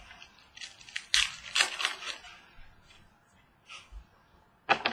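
Trading cards being handled and slid against one another: several quick papery rustles and swishes in the first couple of seconds, a fainter one later, and two sharp clicks close together near the end.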